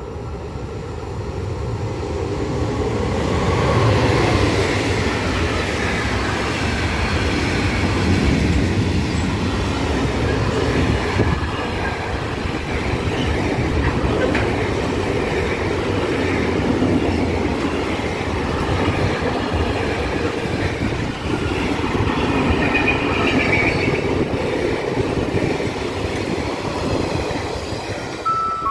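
FS E405 electric locomotive passing at the head of an intermodal container freight train, followed by the long rake of container flat wagons rolling past on the rails. The sound builds over the first four seconds as the locomotive comes by, then stays loud and steady while the wagons pass.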